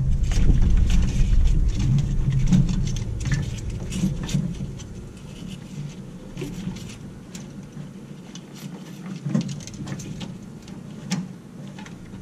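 Handling noise: irregular light clicks and rustles over a low rumble that fades after about four seconds.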